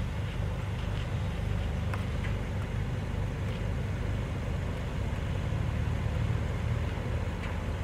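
2019 Hyundai Santa Fe SUV driving up a dirt trail: a steady low rumble of engine and tyres on loose dirt, with a few faint clicks of gravel.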